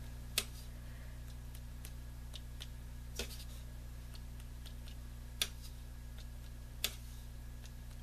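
A few light clicks and taps, the sharpest about half a second, three, five and a half and seven seconds in, over a steady low hum. These are the small handling noises of a paintbrush being worked on watercolor paper and palette.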